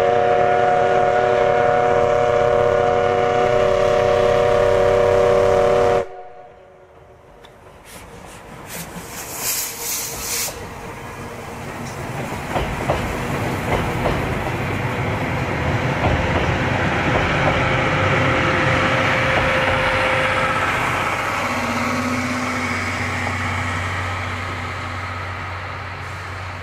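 C11 steam locomotive's whistle sounding one long, steady chime blast that cuts off about six seconds in. A few short hissing bursts follow. Then passenger coaches roll across a steel truss bridge, their rumble and wheel clatter building and then slowly fading.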